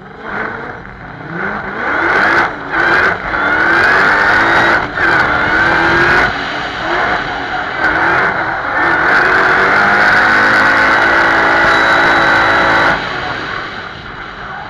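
Supercharged 4.2-litre Audi V8 (ABZ) with an Eaton TVS 1900 blower revving hard from the start line, with several brief lifts off the throttle, then held at high revs for a few seconds before backing off near the end. Tyres screeching through the drift.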